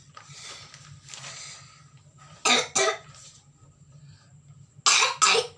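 A child with a cough and cold coughing: two double coughs, one about two and a half seconds in and another near the end, after a couple of breathy breaths.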